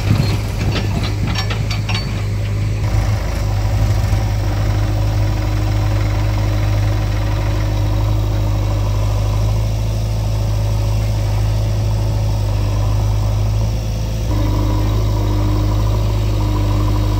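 Diesel tractor engine running steadily as it pulls a loaded trailer of mud away. There are a few sharp clanks in the first couple of seconds.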